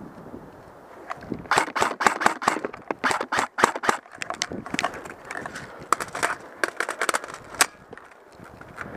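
Airsoft guns firing in rapid bursts of sharp pops, starting about a second and a half in, thickest over the next few seconds, then thinning to scattered shots with a last loud one near the end.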